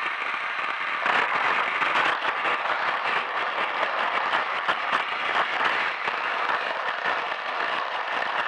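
Plarail battery-powered toy train running on plastic track, its small geared motor and wheels giving a dense crackling rattle that gets louder about a second in, as the train gets going out of the station.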